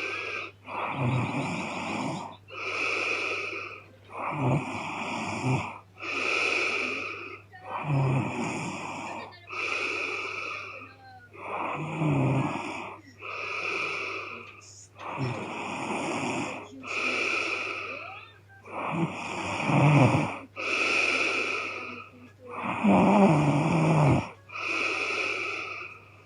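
A young woman snoring heavily in her sleep: a rough, rattling snore with each breath, coming in an even rhythm about every one and a half seconds. A faint steady low hum runs underneath.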